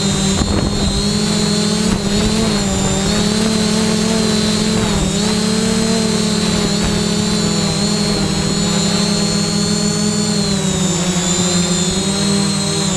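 3DRobotics Y6 drone's six electric motors and propellers buzzing steadily, heard close up from the GoPro mounted on the drone. The pitch rises and dips slightly now and then as the motors adjust.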